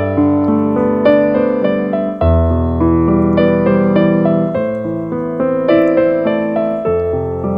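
Background piano music: a steady run of plucky, decaying piano notes over changing bass notes.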